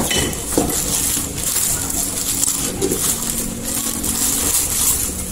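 Clear plastic bag crinkling and rustling as an angle grinder is handled and pulled out of its cardboard box, with a couple of light knocks near the start.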